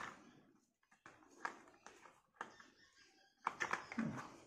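Hard plastic toy dumper truck being handled and turned over: scattered light clicks and knocks of plastic parts, busier and louder near the end.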